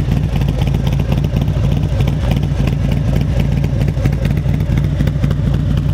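Harley-Davidson Milwaukee-Eight V-twin with a Fueling Reaper 465 cam idling steadily through a Khrome Werks Dominator 2-into-1 exhaust, heard from behind the muffler.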